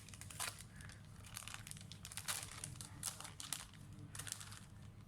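Thin plastic or foil crinkling in irregular bursts as it is handled, over a faint low hum.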